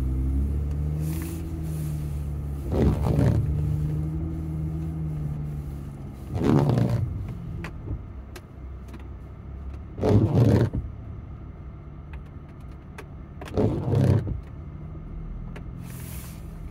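An off-road pickup truck's engine revs in four short bursts, a few seconds apart, as the truck crawls up a rocky ledge. A steady engine hum sits underneath, dying down after the first few seconds.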